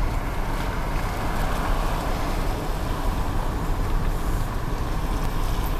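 Steady rumble of a car driving slowly, heard from inside the car: engine and tyre noise with no distinct events.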